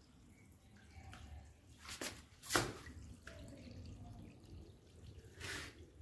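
Faint water dripping and trickling at a floor drain as waste water from the washing machine's cleaning cycle drains out. A few sharp drops stand out, the loudest about halfway through.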